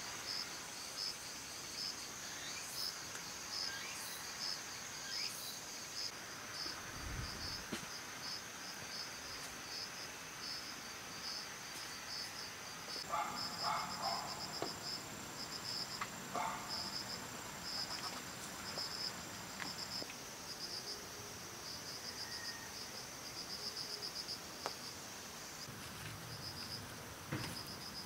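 Insects chirping in a steady, rhythmic high pulse, with a few soft knocks and clatters in the middle.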